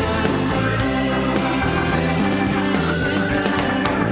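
Rock band playing an instrumental passage, with electric guitar to the fore.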